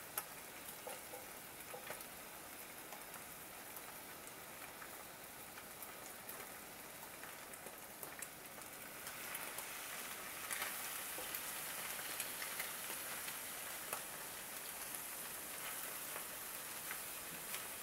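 Noodles, egg and prawns sizzling in a hot Lodge cast iron skillet while being stir-fried, with small scrapes and taps of a wooden spatula. The sizzle grows louder about nine seconds in.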